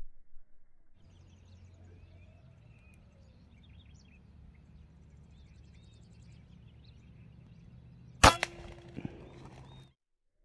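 A PCP air rifle in .22 (5.5 mm) firing a single shot about eight seconds in: one sharp crack with a brief ringing tone after it, and a softer knock under a second later. Before the shot, faint birds chirping over a low steady hum.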